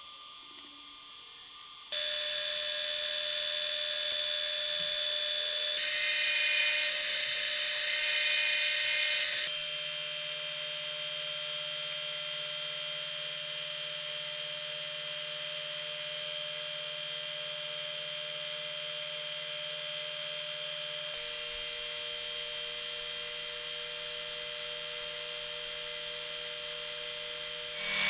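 Metal lathe running: a steady, high machine whine made of several fixed tones, whose mix changes abruptly a few times.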